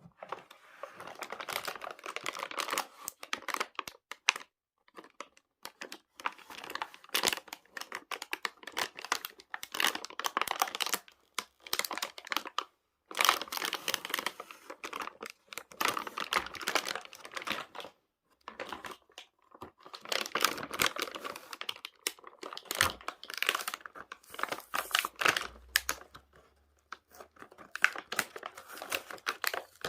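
Toy packaging being opened by hand: crinkling and tearing in irregular bursts, with short pauses between handlings.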